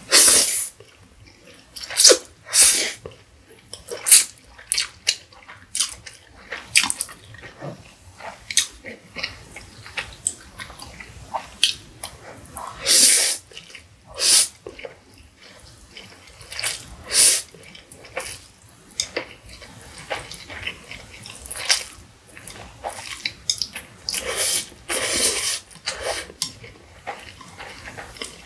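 Close-up slurping and chewing of Indomie Mi Goreng instant noodles: many short hissy slurps at irregular intervals, the loudest at the start and about 13, 17 and 25 seconds in, with softer mouth sounds between.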